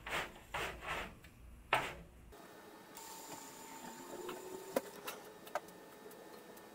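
Crushed limestone sliding out of a tipped wheelbarrow in several short rushes. After that it is faint, with a few sharp clicks.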